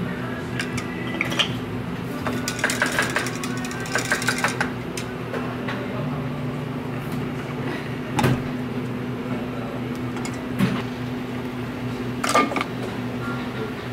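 A latte is poured from a pitcher over ice in a glass mug, a long metal spoon clinking against the pitcher, with a quick run of small clinks and ticks. A few sharp clinks and taps of glassware and containers follow later, over a steady low hum and soft background music.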